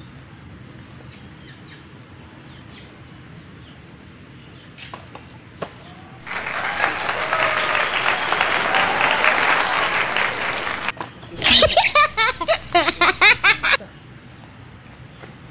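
A couple of sharp snaps about five seconds in as the homemade speargun fires at the banana stalks, then an added sound effect of a crowd applauding for about four seconds, cut off sharply and followed by a couple of seconds of added laughter.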